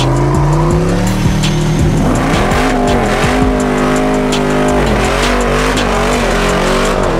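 Car engine held at high revs with tyre squeal, its pitch dipping briefly a couple of times.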